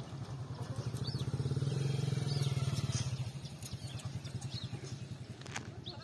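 A small engine running with a fast, even pulse, loudest two to three seconds in and then fading away, with short bird chirps scattered over it.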